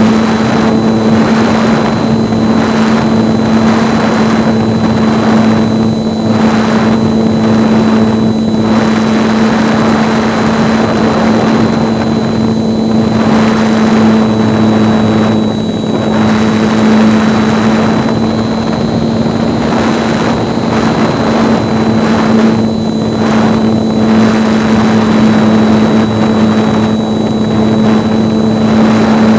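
RC model plane's motor and propeller droning steadily as heard from a camera on board the plane, with rushing air over the microphone that swells and dips every second or so.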